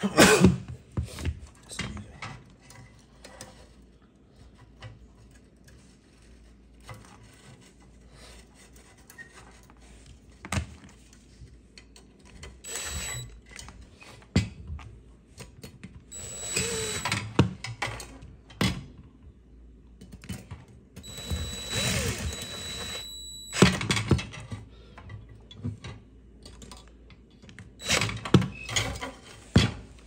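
Cordless drill/driver with a nut-driver bit running in short bursts on the terminal nuts of a dishwasher heating element, with a steady high motor whine; the longest run comes about two-thirds of the way in and lasts a couple of seconds. Between runs come sharp clicks and knocks of the drill, bit and small parts being handled.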